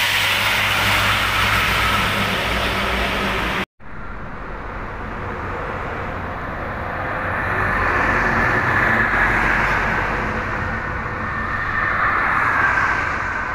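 Highway traffic passing close by: engine hum and tyre noise of buses, trucks and cars, swelling twice as vehicles go past. The sound cuts out for a moment about four seconds in.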